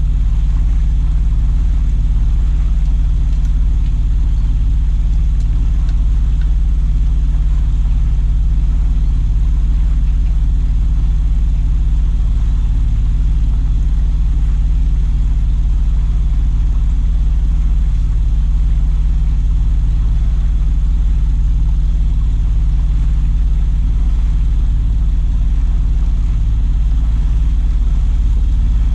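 An engine running at a steady speed, a continuous low drone that does not change.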